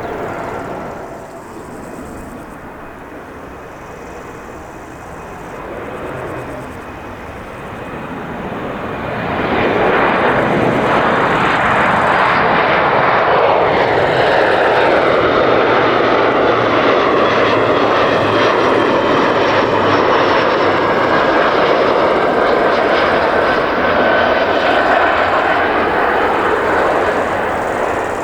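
Jet aircraft engines passing close: a roar that builds sharply about nine seconds in and stays loud, with tones sweeping down in pitch as the aircraft goes by.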